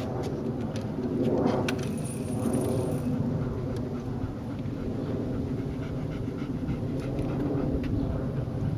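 Greater Swiss Mountain Dog panting over a steady low outdoor rumble. About one to three seconds in, a brief swell of rattling noise comes as the small metal dog cart is wheeled up behind her.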